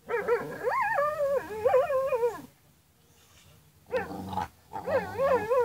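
A dog vocalizing while play-wrestling: a pitched growl that wavers up and down. It comes in three stretches, a long one of about two and a half seconds, a short one near four seconds, and another from about five seconds in.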